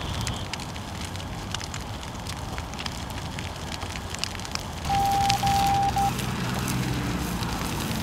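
Dry grass burning, with frequent sharp crackles and pops from the flames. About five seconds in, a steady electronic tone sounds for about a second, broken twice, louder than the fire.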